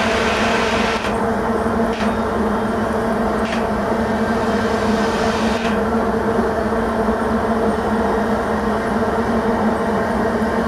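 Loaded iron-ore freight train rolling past: a steady rumble of the heavy ore wagons on the track with a low steady hum, and a few faint clicks.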